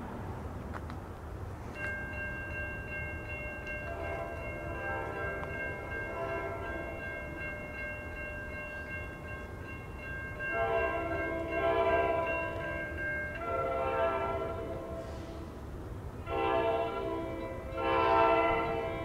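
Horn of an approaching NJ Transit ALP-45A electro-diesel locomotive, heard faintly at first and growing louder as it nears. From about ten seconds in it sounds four blasts, long, long, short, long: the grade-crossing signal.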